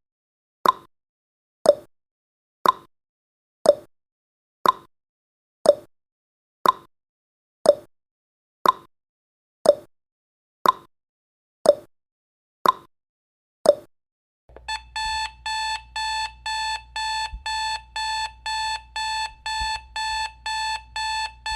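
Countdown timer sound effect: a sharp tick once a second, then about fourteen seconds in the ticking stops and an alarm-clock alarm beeps rapidly, about three beeps a second, to mark the timer reaching zero.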